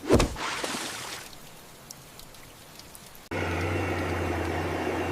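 A sudden thump followed by a hissing spray that fades over about a second, then quiet. A little past halfway the sound cuts abruptly to a steady low engine hum.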